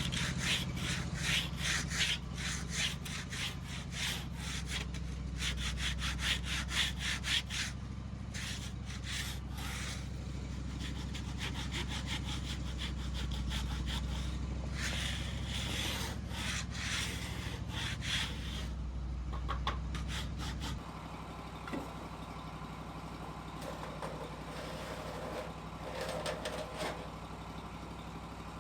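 Portable sawmill running under load, its engine humming steadily while the blade cuts through a log with a fast, rasping chatter that comes and goes. About two-thirds of the way in the engine drops to a quieter, lower idle as the cut ends.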